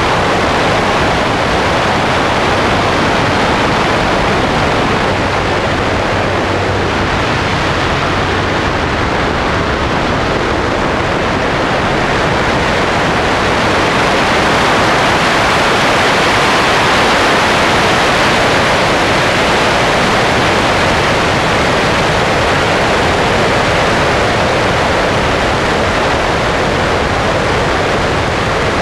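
Wind rushing over a wing-mounted camera on a Sonex light aircraft in flight, with the engine and propeller droning low beneath it. The rush grows louder for a few seconds midway through the manoeuvre.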